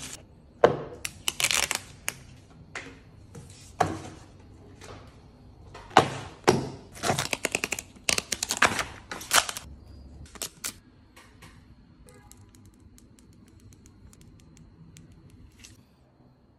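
Plastic packaging crinkling and small items being tapped and set down on a wooden table, sharp rustles and clicks in quick clusters for about ten seconds, then only faint clicks as a glass screen protector is fitted in its alignment tray.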